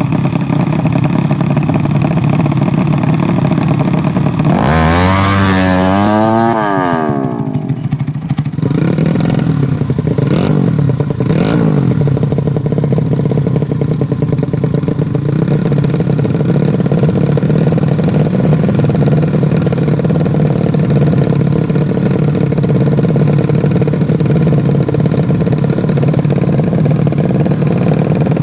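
Motorcycle engines running steadily, with one bike revving hard and accelerating away about five seconds in, its pitch climbing through the gears. A few brief sharp revs or blips follow a few seconds later.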